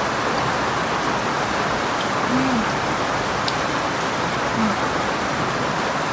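Steady rain, an even hiss that does not let up, with two brief low sounds about two and four and a half seconds in.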